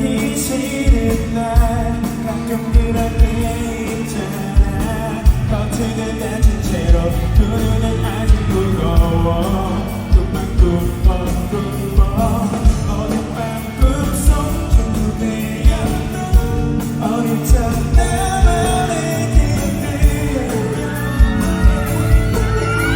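Live amplified pop music: a male singer's vocal over a full band with a regular kick-drum beat, from a concert sound check.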